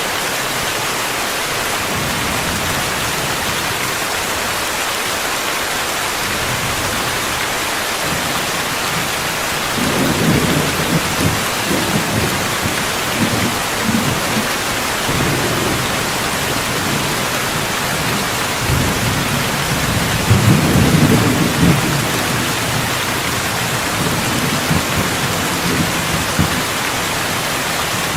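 Steady heavy rain hissing, with thunder rumbling low twice: a long roll starting about ten seconds in, and a second, louder one around twenty seconds in.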